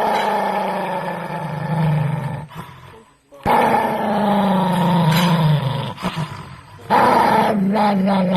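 A dog growling in three long, drawn-out spells of about three seconds each, with short breaks between them.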